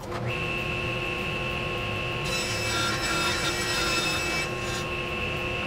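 Table saw running with a steady whine while ripping a 3/4-inch plywood board lengthwise. The cutting noise grows louder and hissier about two seconds in, while the blade is deepest in the wood, and eases back about four and a half seconds in.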